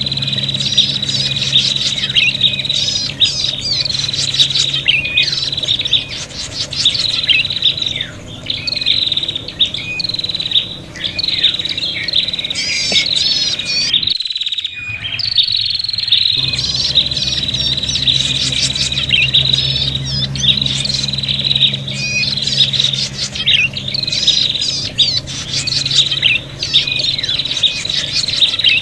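Prinias (prenjak) giving rapid, agitated chattering chirps and trills, the excited calling used as a lure. A steady high tone runs underneath. The sound drops out for about two seconds roughly halfway through, then resumes.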